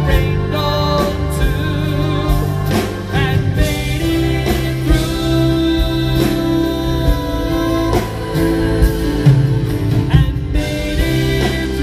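A male singer singing a ballad live through a PA, accompanied by two acoustic guitars, with a wavering vibrato on held notes.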